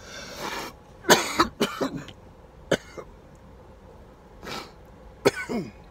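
A man coughing from vape smoke: a breath out, then a fit of sharp coughs about a second in, and another short burst of coughs near the end.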